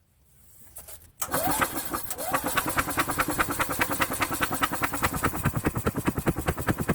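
Yamaha G23A utility cart engine being cranked by its starter, with the spark plug out for a spark test. It starts about a second in with a rising whine as it spins up, then settles into a fast, even chuffing that does not catch.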